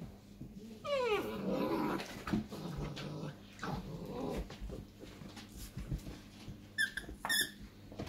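Irish Wolfhound puppies vocalising while they play-fight: a falling cry about a second in, then a few seconds of lower growly noises, and two short high squeaks near the end.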